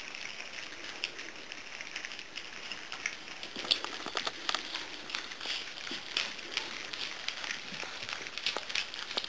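A litter of puppies eating from stainless steel saucer feeding pans: a busy run of small irregular clicks, smacks and ticks from chewing, lapping and muzzles knocking the metal. It grows busier and louder about three seconds in.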